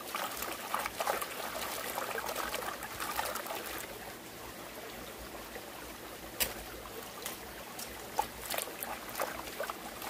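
Hands swishing fresh-picked herb leaves in a stainless steel colander dipped in a shallow stream: water sloshing and dripping, with scattered sharp splashes and clicks, over the steady trickle of the stream.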